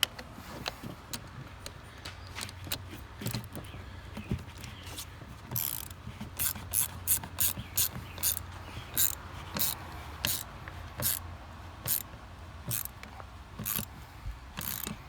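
Quarter-inch drive socket ratchet clicking as it tightens the 10 mm nut on the battery's ground terminal. The clicks are scattered at first, then come as a steady run of short strokes from about a third of the way in.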